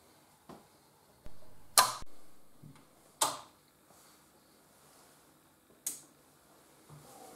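A few sharp clicks and knocks from hands handling parts at a pillar drill, three crisp ones about a second or two apart, the loudest about two seconds in, with softer bumps between.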